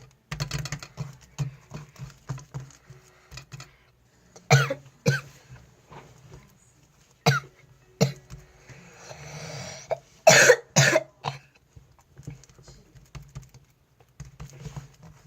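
Melted slime being squished and poked by hand, making quick sticky clicks and squelches, broken by several loud coughs in the middle.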